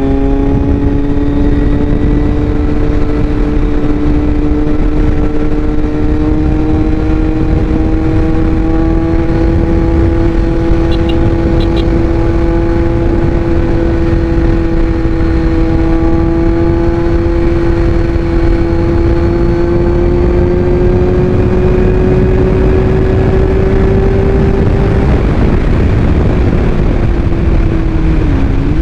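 Kawasaki Z900 inline-four motorcycle engine with its airbox removed, running with a steady engine note that climbs slowly and smoothly for most of the time, then eases off near the end, over a heavy low rumble.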